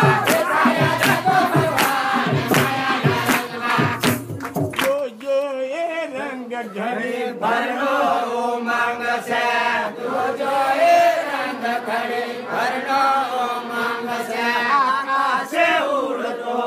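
Group of voices singing a Gujarati devotional bhajan in a chanting style. For about the first five seconds, drum strokes keep a steady beat under the singing; then the percussion drops out and the voices carry on alone.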